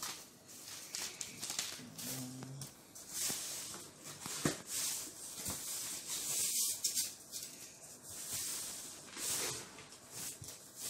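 Plastic packing wrap and cardboard rustling and crinkling as a shipping box is unpacked by hand, in irregular scrapes and crackles.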